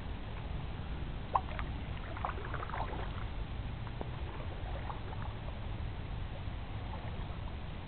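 Canoe paddling: the paddle dipping and water dripping over a steady low rumble, with one sharp knock about a second and a half in.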